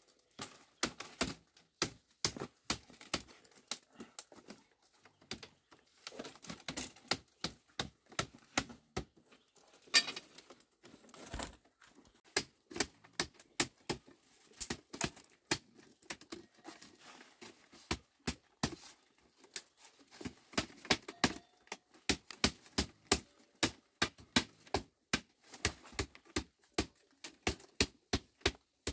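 Machete blade striking and trimming bamboo strips: a long run of sharp knocks and cracks. They are irregular at first, then come quicker and more evenly, about two or three a second, in the last third.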